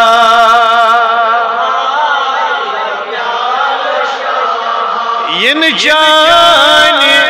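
Male voice chanting a devotional verse through a loudspeaker system, holding one long melodic note that slowly fades, then starting a new phrase with rising, wavering pitches about five seconds in.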